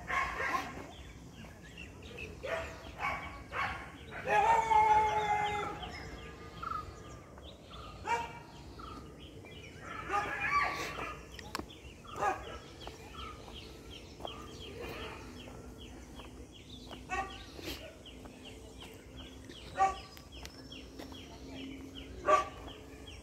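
A rooster crowing loudly once, about four seconds in, and a shorter call from the birds near ten seconds, over scattered chicken calls and short clicks.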